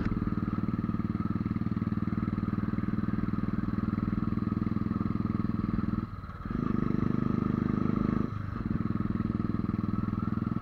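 Motorcycle engine running steadily while riding uphill, the note dipping briefly about six seconds in and again about two seconds later. At this altitude the thin air leaves the bike short of power, which the rider says keeps it from picking up.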